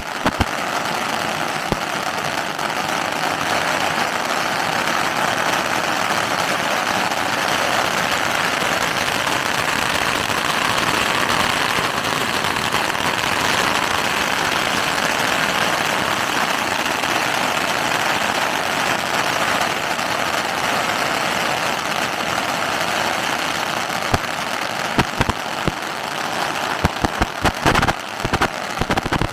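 A long string of firecrackers going off in a dense, continuous crackle, breaking into separate, louder bangs over the last five seconds or so.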